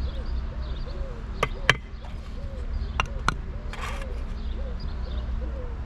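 Four sharp knocks in two quick pairs, about a second and a half apart, over a steady low hum. A faint squeak repeats about twice a second throughout.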